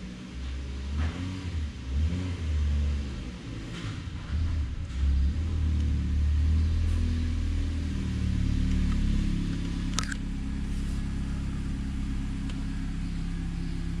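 A car engine running, its revs rising and falling for the first several seconds, then settling to a steady idle. A single sharp click comes about ten seconds in.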